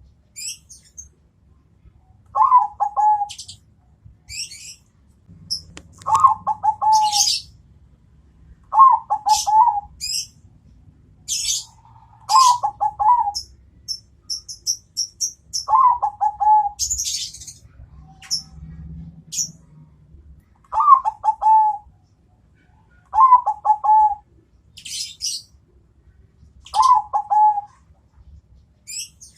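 Bangkok-type zebra dove (perkutut) singing its cooing song: short phrases of quick pulsed coos, about eight in all, repeated every few seconds. High, short chirps of small birds come in between.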